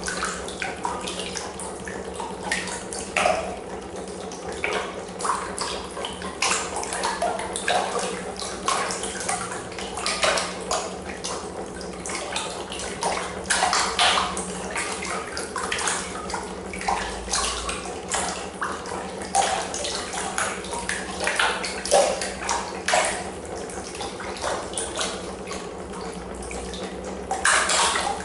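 Water splashing and sloshing irregularly in a plastic trough, churned by a homemade neodymium-magnet piston engine with a copper drive coil, over a steady low hum.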